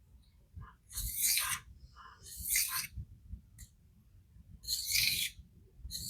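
Kershaw Iridium's D2 steel blade drawn across a sharpening stone in three scraping strokes, each about half a second long. These are passes to remove steel and knock off a foil burr left by fatigued steel at the edge.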